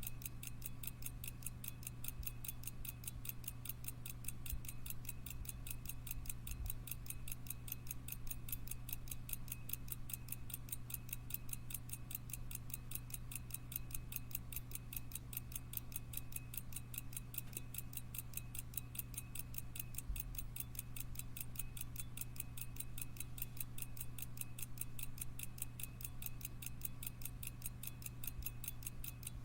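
A mechanical pocket watch ticking: rapid, even ticks from its running movement, over a steady low hum.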